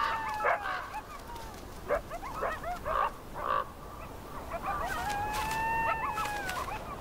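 Coyotes yipping and whining: a run of short yips through the middle, then a long drawn-out call that rises and falls near the end.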